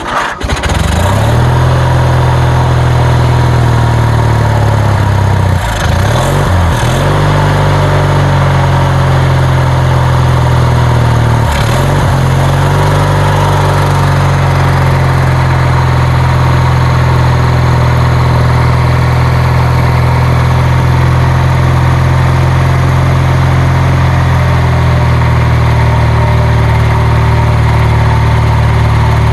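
Kohler 20 HP Magnum engine on a riding mower catching and then running steadily. Its speed dips briefly twice, about six and twelve seconds in. It is a long-stored engine that has been struggling to stay running.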